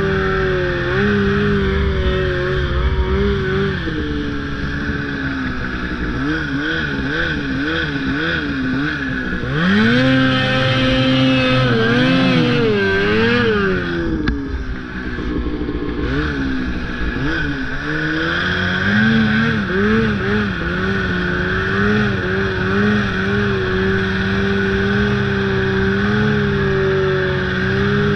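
Snowmobile engine running under way, its pitch rising and falling as the throttle is worked through the middle, easing off briefly about two thirds of the way in, then holding steady at speed over a constant rushing noise.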